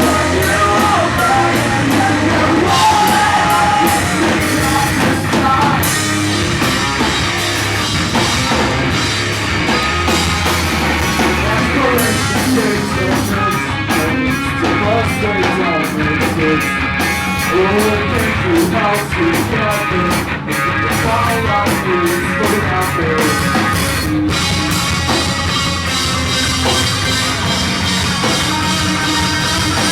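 Pop punk band playing live: distorted electric guitars, bass and drum kit, with a singer's voice.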